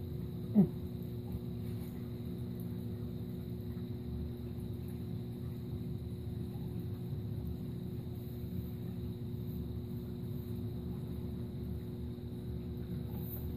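Steady low hum of running aquarium pumps, with several fixed tones held through it. About half a second in, a short, loud squeak falls quickly in pitch.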